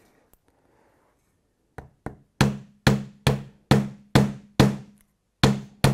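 Hammer knocking repeatedly on a glued, clamped 3D-printed PETG test piece, testing the glue joint. The knocks start about two seconds in, light at first and then firmer, at about two a second with a short pause near the end. Each knock has a short low ring.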